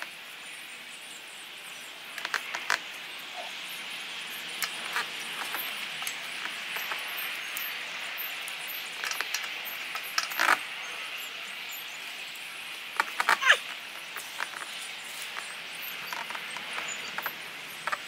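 Small metal shifter-kit parts, an aluminium spacer among them, clinking and clicking as they are handled and fitted into the gear-shifter housing by hand: scattered taps, with a quick cluster of clicks about two-thirds of the way through.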